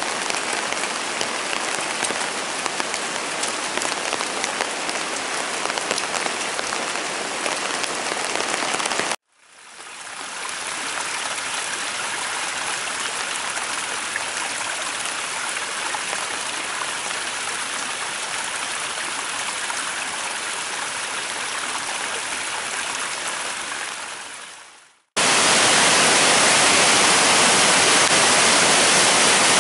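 Heavy rain falling steadily, broken by two short silent cuts partway through. Near the end comes a louder, steady rush: a muddy mountain river in flood after the downpour, pouring over a weir.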